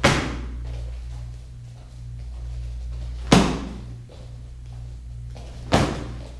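Three kicks slapping against a kick target, the second about three seconds after the first and the third some two and a half seconds later, each sharp smack echoing briefly. A steady low hum runs underneath.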